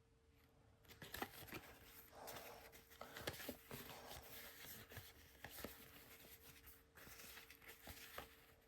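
Faint rustling and small clicks of cardboard trading cards being slid and flipped through by hand, starting about a second in.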